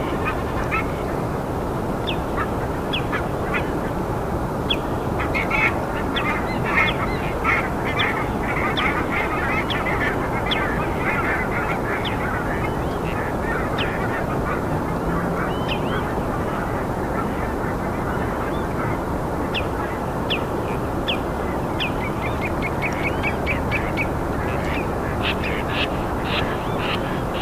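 Birds calling at night in a forest, many short sharp calls in quick runs, thickest in the first half and again near the end, over a steady rushing background noise.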